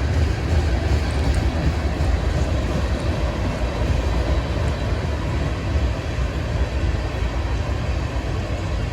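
Cars of a Norfolk Southern manifest freight train rolling past: a steady, deep rumble of wheels on rail.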